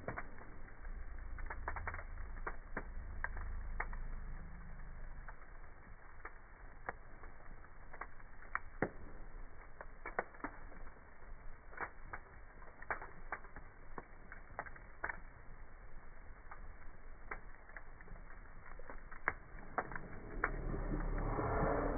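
Wood fire burning in a fireplace, crackling with irregular sharp pops and snaps. A low rumble builds near the end.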